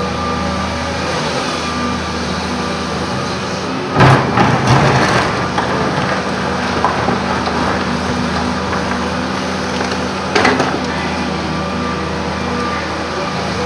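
Volvo EC210C crawler excavator's diesel engine running steadily, with a loud crash and clatter of the steel bucket digging into rock and soil about four seconds in, and a second, shorter crash near ten seconds.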